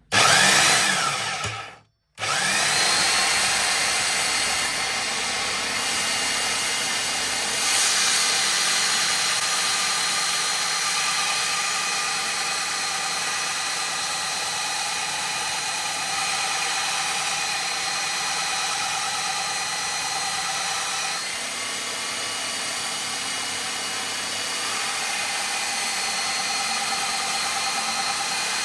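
Einhell TC-BS 8038 800-watt belt sander, clamped upside down as a bench grinder, spinning up, cutting out for a moment at about two seconds, then running steadily with a motor whine. A thin steel blade is held against the moving sanding belt, grinding an edge onto it.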